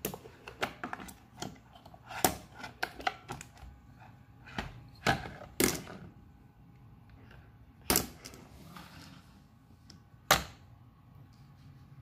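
Plastic clicks, rattles and clacks of a GOOVI robot vacuum's removable dustbin being handled and its hinged filter cover opened, with a handful of sharper knocks spread through.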